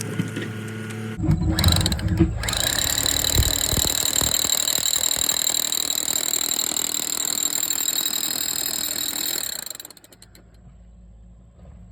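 Electric drill boring a hole through a concrete foundation wall: a steady high motor whine over grinding noise, which stops about ten seconds in.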